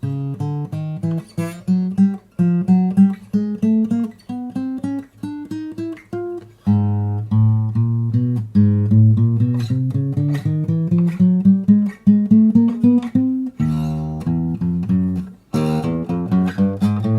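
Cort CJ5X acoustic guitar played with a quick run of picked single notes, broken by full strummed chords that ring out about seven seconds in, at about fourteen seconds, and again near the end.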